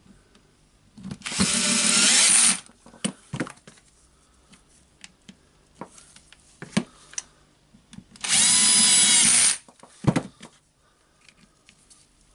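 Bosch cordless drill-driver running twice, each time for about a second and a half with a steady whine, driving screws back into the housing of a Hilti SF4000 drywall screw gun. Between the runs come small clicks and knocks of parts being handled.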